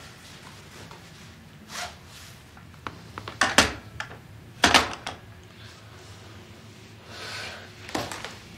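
Clicks and clunks of a corded telephone handset being hung up on its base, the two loudest knocks about a second apart around the middle. A softer knock follows near the end.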